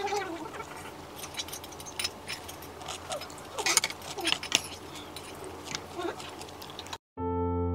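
Metal spoon clinking against an earthenware bowl of soup and rice, a scatter of light clicks, with faint voices in the background. Near the end the sound cuts out briefly and piano music starts.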